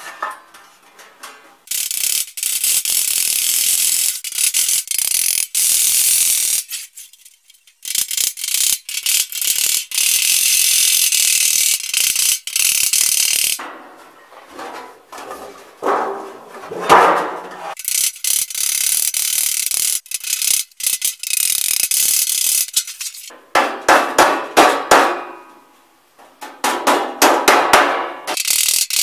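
Galvanized sheet-metal duct panels scraping and clattering as they are slid together along their Pittsburgh lock seams to assemble a split ('pair of pants') plenum fitting. Long rasping scrapes are broken by clicks and knocks, with louder knocks of metal on metal near the end.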